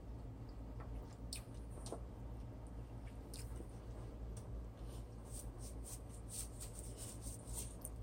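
Faint, scattered clicks and taps of plastic spice containers being handled and set down on the counter, more frequent in the second half, over a low steady hum.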